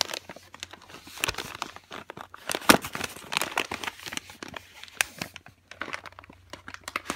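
Cardboard shipping box and its packaging being handled and pulled open: irregular crinkling and rustling with many sharp crackles, loudest about two and a half seconds in.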